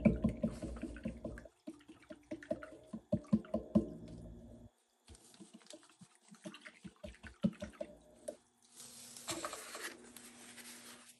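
Paintbrush being swished and rinsed in a plastic tub of water, with quick small taps and splashes against the tub that thin out to scattered taps. A brief rustle follows near the end.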